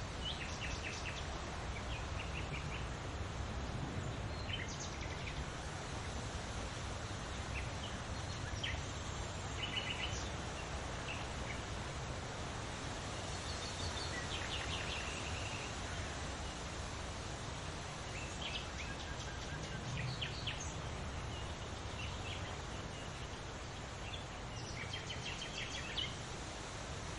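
Songbirds chirping and trilling in short, scattered phrases, several quick rapid trills among them, over a steady wash of wind and rustling leaves.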